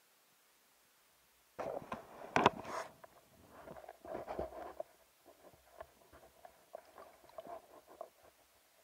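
Underwater knocks and rubbing from a spearfisher's gear moving in the water, starting after a second and a half of near silence, with one sharp knock about two and a half seconds in.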